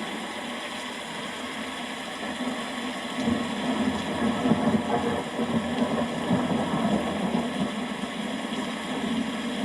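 Steady rain with a long roll of thunder that builds about three seconds in, is loudest around the middle and slowly dies away.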